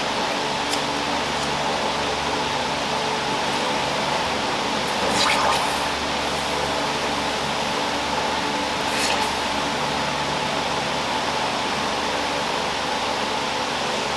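Steady rush of artificial wind with water being sprayed, hissing and splashing, during a wind-and-rain test of a burning UCO stormproof match; brief louder swells about five and nine seconds in.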